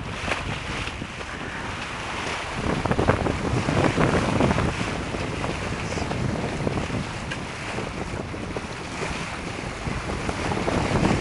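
Wind buffeting the microphone over the rush and splash of water along the hull of a sailing yacht under way.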